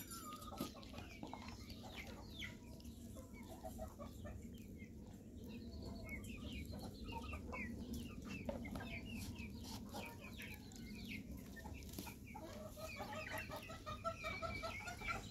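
Chickens clucking, short scattered calls with a quick run of repeated clucks in the last few seconds.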